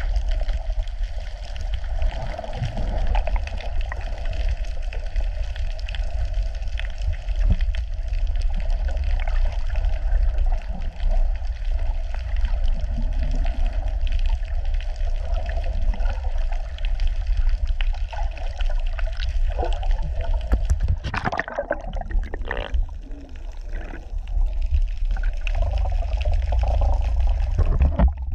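Water noise picked up by a camera held underwater while snorkelling: a steady low rumble with sloshing and trickling water, and a short louder splash about three-quarters of the way through.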